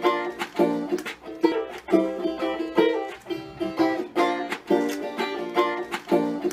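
Banjo intro music: a bright tune of quick plucked notes with a steady beat.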